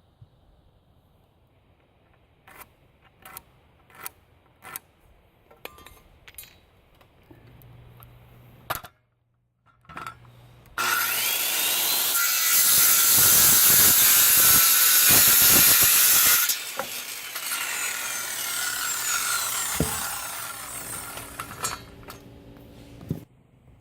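A power saw cutting through lumber: a loud cut of about six seconds starting roughly halfway through, then the blade running on more quietly and winding down. Before the cut, a scattering of sharp clicks and knocks.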